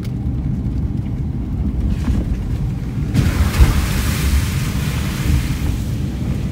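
Steady low rumble of a Subaru Outback driving a dirt road, heard from inside the cabin; about three seconds in, a loud hiss of the tyres running through water over the road joins it and fades out near the end.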